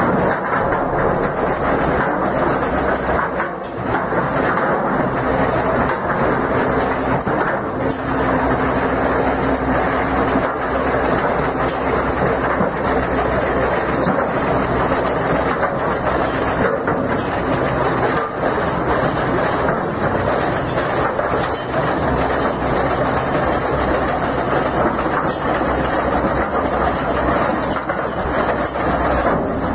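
Heavy machinery running with a steady, loud rattling clatter and a low hum underneath.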